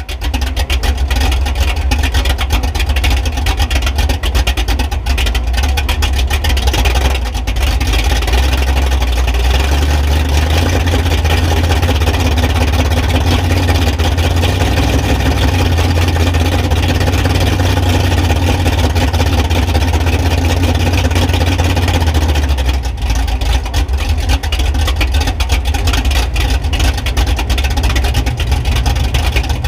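Mega truck's engine running with a deep, loud rumble, heard from beneath the truck. Its note shifts about eight seconds in and again near twenty-three seconds.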